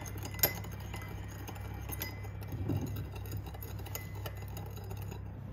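Metal spoon stirring a thin vinegar salad dressing in a small ceramic bowl, clinking against the bowl now and then, with one sharper clink about half a second in. A steady low hum runs underneath.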